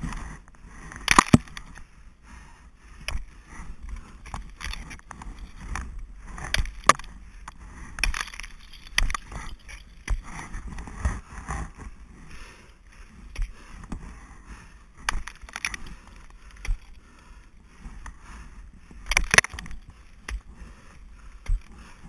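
Ice-axe picks and crampons striking into the water ice of a frozen waterfall: sharp, irregular impacts every second or few, the loudest about a second in, with rustle and scraping between the strikes.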